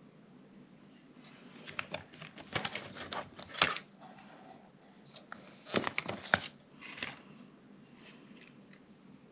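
Crinkling and clicking of thin clear plastic dessert cups and a paper cake box being handled, in two bursts, the first about a second in and the second about six seconds in.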